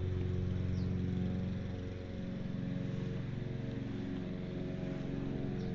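A steady low machine hum with a droning pitch, which dips slightly and gets a little quieter about two seconds in.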